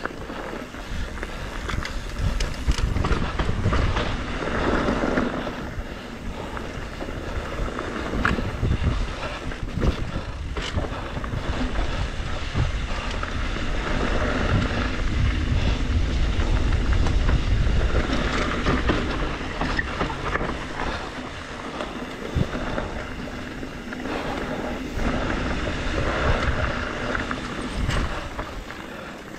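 2021 Trek Slash 7 mountain bike ridden down a dirt singletrack: wind buffeting the GoPro's microphone with a steady low rumble, tyres rolling over dirt and rock, and scattered sharp knocks and rattles from the bike over bumps.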